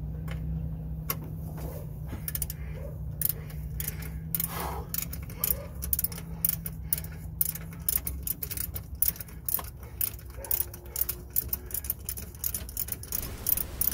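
Light metallic clicks and clinks of a nut and tools being worked onto an exhaust manifold stud by hand, coming quicker and denser in the second half. Under them a steady low hum stops about eight seconds in.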